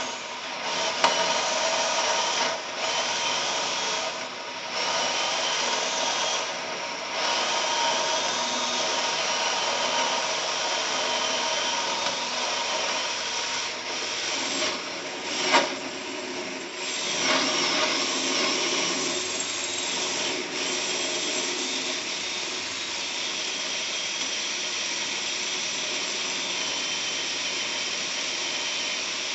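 Electric drill running under load, its titanium-coated high-speed steel bit cutting into the soft outer steel of a B-rated safe, with a steady whine. The sound eases off briefly several times, and there is one sharp click about fifteen seconds in.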